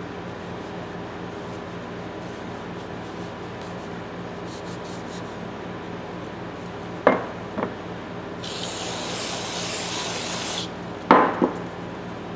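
Shop rag rubbing and wiping a rusty tap wrench handle, with two sharp knocks about seven seconds in. Then a can of aerosol carb cleaner sprays with a hiss for about two seconds, followed by two more sharp knocks.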